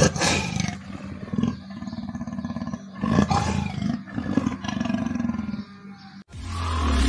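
A big cat roaring, about four loud, rough calls in the first five seconds. Electronic music starts just before the end.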